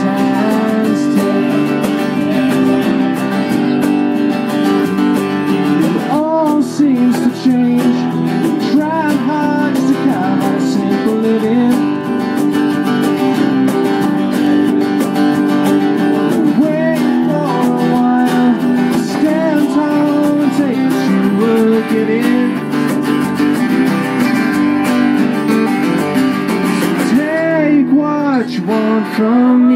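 A small folk band playing live: acoustic guitars strummed over a bass guitar, with a voice singing the melody.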